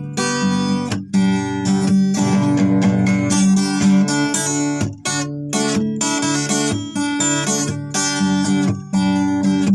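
Acoustic guitar music, strummed chords in a steady rhythm.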